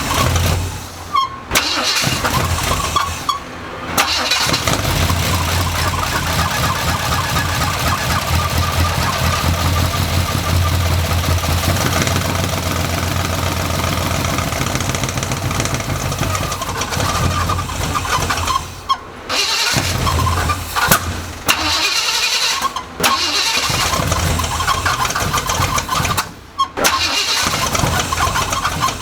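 Truck engine on a freshly installed flat-tappet camshaft, starting and running roughly, cutting out briefly several times. Its uneven running comes from mixed-up spark plug wires throwing the ignition timing off, according to the owner.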